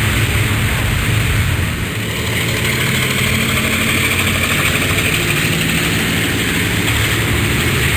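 Helicopter running steadily, its engine hum and rapid rotor beating continuous throughout, with a hiss of turbine and air above.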